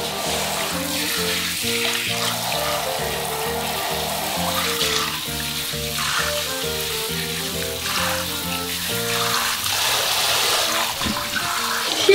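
Handheld shower head spraying water onto a baby in a bathtub, a steady hiss of running water. Background music with evenly spaced notes plays over it and stops about three-quarters of the way through.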